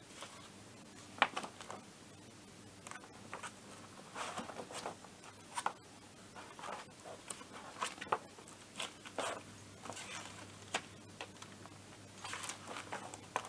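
Pages of a paper workshop manual being leafed through, rustling in short, scattered swishes with the odd sharp crackle.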